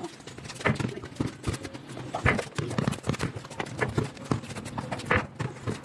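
Basketball bouncing on a hard outdoor court: an irregular run of thuds, mixed with players' footsteps.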